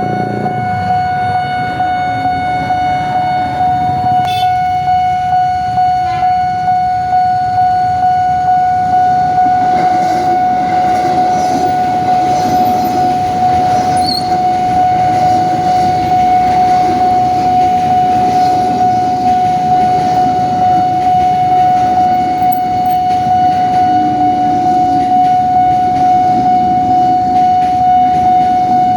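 Railway level-crossing warning alarm sounding one steady high tone without a break. From about ten seconds in, a passing train's rumble sounds under it.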